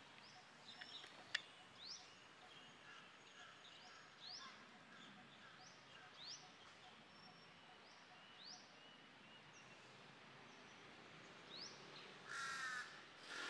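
Faint birdsong: a bird repeats a short rising whistled note about once a second over a soft background hiss, with other birds chirping quietly. A single sharp click about a second in.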